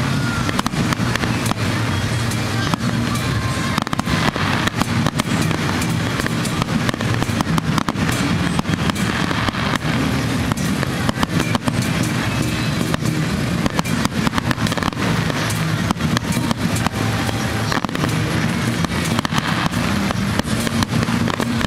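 Fireworks display going off continuously: a dense, unbroken stream of bangs and crackles.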